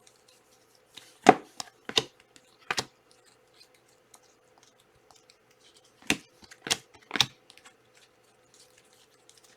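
Trading cards being handled on a table: six crisp snaps and clicks in two groups of three, over a faint steady hum.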